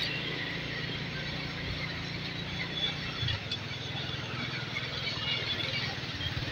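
A small engine running steadily, a low hum, under outdoor street background noise.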